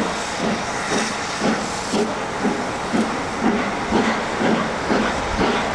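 Steam locomotive working hard as it pulls an excursion train away, its exhaust beating about twice a second over a steady hiss of steam.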